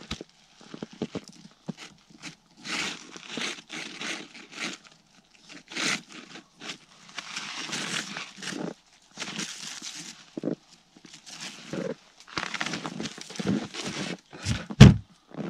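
Irregular bursts of crunching and rustling as someone works in wet snow and slush, handling a cable, with one sharp loud thump near the end.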